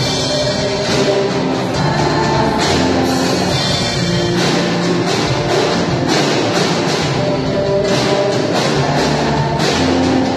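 Worship band music, with held chords over a drum kit keeping a steady beat.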